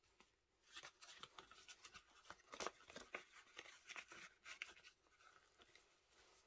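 Faint close-up rustling and crackling of paper banknotes being fanned and slid into a WESN Forsta vegetable-tanned leather wallet, with soft rubbing of the leather. The small crackles and taps are busiest in the middle few seconds and thin out near the end as the wallet is folded shut.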